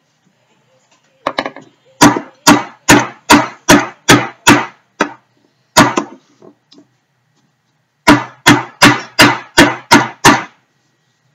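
Background music of strummed acoustic guitar chords, about two and a half strums a second, in runs with a pause of about two seconds in the middle.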